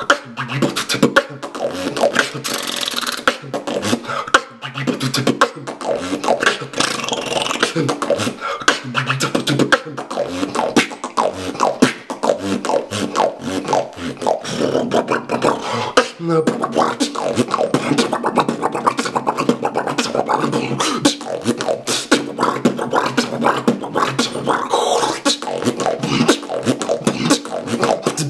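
One person beatboxing solo: a fast, dense stream of mouth-made drum sounds, with voiced tones mixed in.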